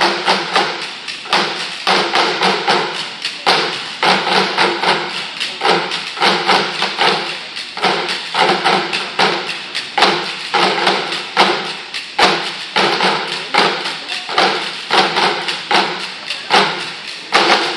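Percussion ensemble drumming on upturned plastic buckets with drumsticks, with pitched plastic pipes also struck. The strikes are dense and fast, in a steady driving rhythm with regular accents.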